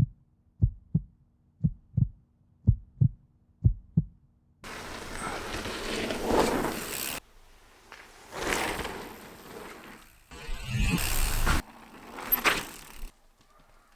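A heartbeat, double thumps about once a second, for about four seconds. Then several abruptly cut stretches of rushing noise from riding a bicycle: wind and tyre rush.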